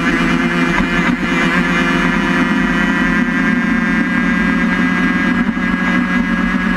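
Engine of the vehicle carrying the camera, running at a steady speed with a constant pitch, over road and wind noise.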